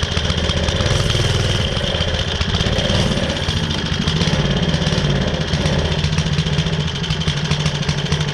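Vintage mini bike's small single-cylinder Briggs & Stratton engine running at a steady idle. It is running a little rich, which the owner puts down to a carburetor gummed up from long storage.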